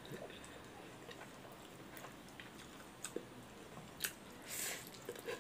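Close-up eating sounds of a person chewing a mouthful of rice and pork, with small wet clicks. A sharp click comes about four seconds in, followed by a short, louder bite into a pork leg.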